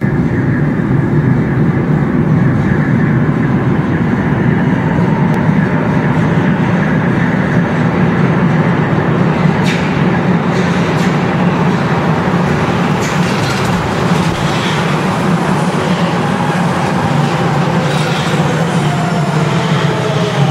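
Sapporo Municipal Subway 5000 series rubber-tyred train running in through the tunnel and arriving at the platform, a steady loud rumble. Its VVVF inverter motor whine falls in pitch near the end as the train slows.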